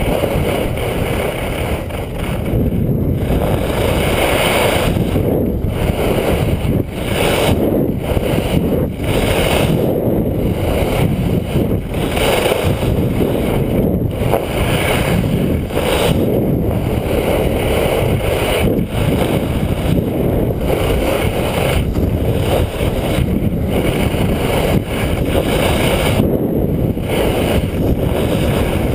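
Loud wind rushing over a skier's camera microphone during a downhill run, mixed with the hiss of skis sliding on snow; a steady rumbling noise that swells and dips.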